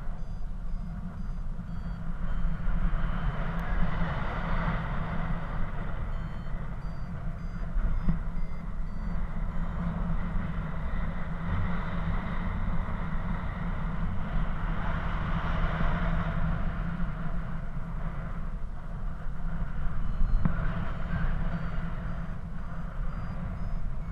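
Wind rushing over the camera microphone of a paraglider in flight, a steady low rumble. Over it, a flight variometer gives clusters of short, high beeps at changing pitch, the signal that the glider is climbing in lift.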